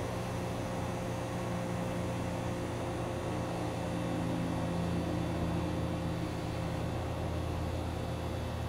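Steady low mechanical drone with a few held hum tones, swelling slightly in the middle.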